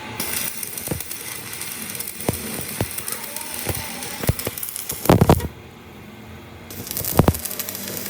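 Crackling hiss with a series of sharp metallic knocks, the loudest a cluster about five seconds in and another about seven seconds in; the hiss stops for about a second between them.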